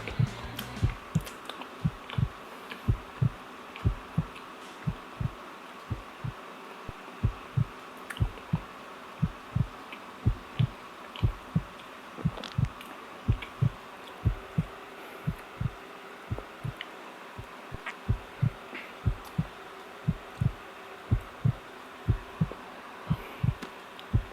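Close-miked chewing of soft donuts: a run of dull low thuds from the jaw, about two a second, with faint wet mouth clicks.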